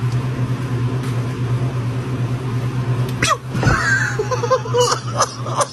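Steady low hum of a walk-in drinks cooler's fans, with scattered clicks and rattles. A little over three seconds in comes a sudden sharp outburst of breath and voice.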